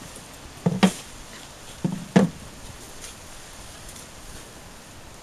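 Two sharp double knocks about a second apart, from the keepers' handling of the sheep tip crush and the mouflon's secured legs.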